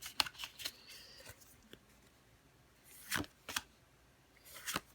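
Pokémon trading cards being handled and flipped through: a few clusters of short rustles and clicks as the cards slide against each other.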